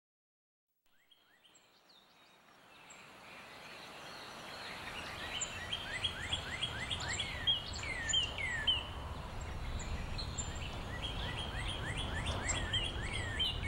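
Outdoor ambience of birds chirping, fading in from silence over the first few seconds: many short chirps that sweep down in pitch, several a second, over a steady low rumble.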